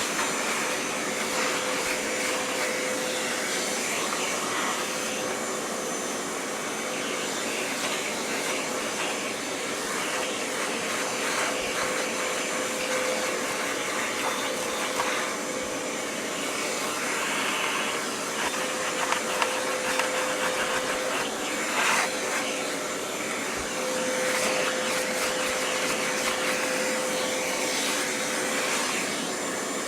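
Oreck XL hand vacuum running steadily as it sucks dust off an upright vacuum cleaner, with a steady tone in its sound that drops out and returns several times.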